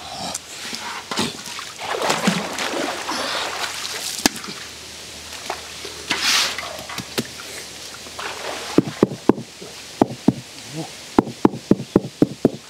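Shallow water splashing, then from about nine seconds in a quick run of sharp knocks, several a second: a hatchet striking a waterlogged log.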